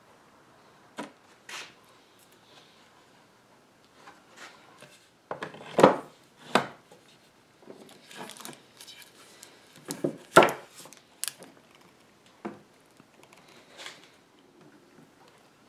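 Scattered knocks, taps and clicks of clamps and strips of wood being handled and set in place on an oak tabletop, with two louder knocks about six and ten seconds in.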